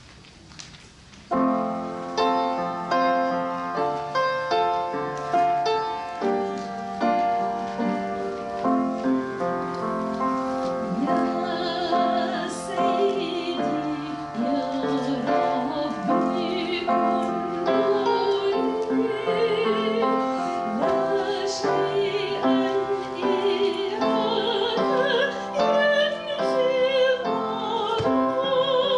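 Music starts suddenly about a second in: a keyboard instrument playing sustained chords, joined about ten seconds later by a singing voice with vibrato.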